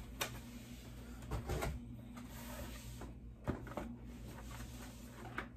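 Small cardboard box and packaging being handled: scattered light taps and clicks, with a couple of soft thumps about a second and a half in and again past three seconds, over a steady low hum.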